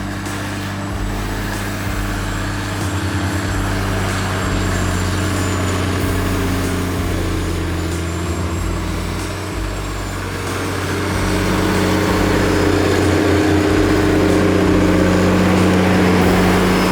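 Diesel engine of a large farm machine running steadily under load, growing a little louder about two-thirds of the way through.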